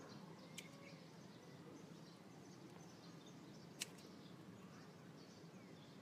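Near silence with faint bird chirps, broken by two small sharp clicks, about half a second and about four seconds in, the second the louder: pliers snipping thin cable wires.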